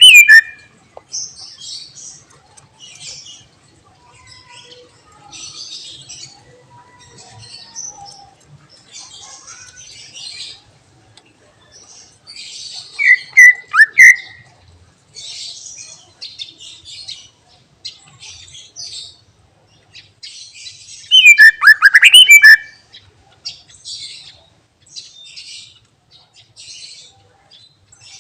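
Green leafbird (cucak ijo) singing: a steady run of short, high twittering notes, broken twice by loud bursts of sweeping whistles, near the middle and again later on. The song strings together mimicked phrases of other birds.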